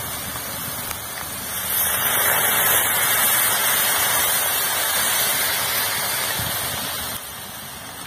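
Grated carrots frying in hot ghee in a kadai, sizzling as liquid milk is poured over them from a plastic pouch, with steam coming off. The sizzle grows louder about a second and a half in and eases off near the end.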